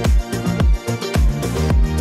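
Electronic dance music with a steady kick drum, about two beats a second, over a sustained bass line.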